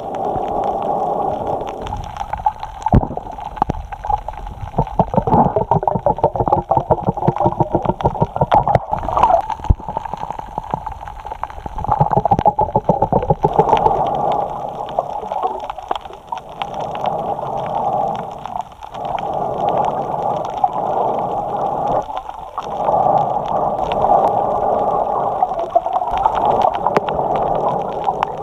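A snorkeler's breathing through the snorkel, picked up by a camera mounted on the snorkel: repeated rasping breaths in and out, with a short pause every few seconds. A dense run of clicks sounds from about two to twelve seconds in.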